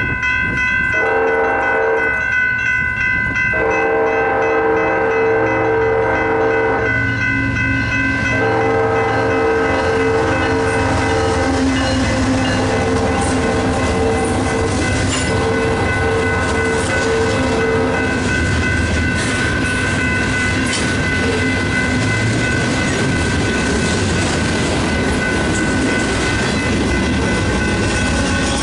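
BNSF freight train's horn sounding several long blasts over a steady ringing crossing bell, followed by freight cars rumbling and clacking over the crossing. A diesel locomotive passes near the end.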